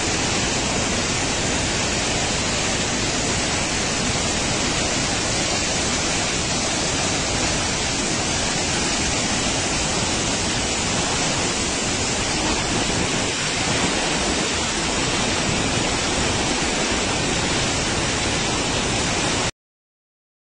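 Floodwater rushing through the Roseires Dam's six open spillway gates: a steady, loud rush of churning water. It cuts off suddenly near the end.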